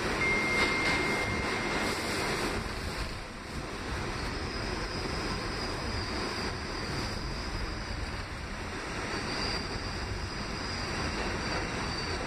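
Interior ride noise of an R68A subway car in motion: a steady rumble and rush of steel wheels on rail. A thin high whine sounds over the first two seconds, and fainter high-pitched squeals come and go later.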